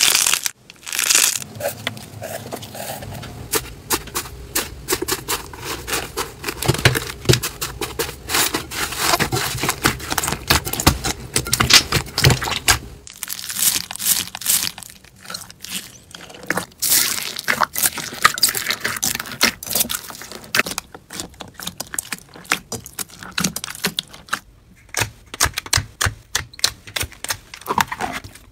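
Crunchy slime being squeezed and pressed by hand, making a dense run of small crackles and pops. From about halfway through it is floam packed with foam beads, giving sharper, drier crackling.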